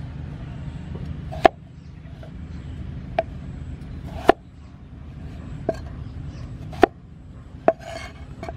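Cleaver chopping peeled potato on a wooden chopping block: six sharp knocks at uneven intervals, roughly a second apart. A steady low rumble runs underneath.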